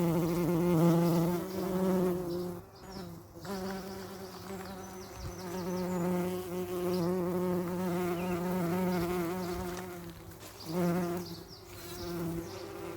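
Bees buzzing: a wing drone that wavers slightly in pitch and swells and fades as the bees move about. It breaks off briefly about three seconds in and again about ten seconds in.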